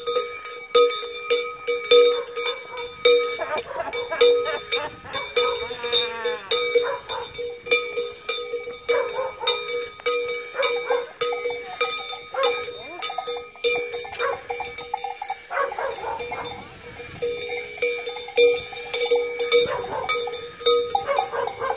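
Large cowbells worn by costumed devils clanging continuously and rapidly as the wearers run, with shouting voices mixed in around the middle.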